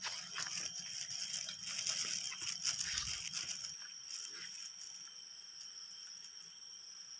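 Crackling and rustling of dry leaves and undergrowth under footsteps on a path, busiest and loudest in the first half and thinning out after about four seconds. Under it, a steady high-pitched insect drone carries on throughout.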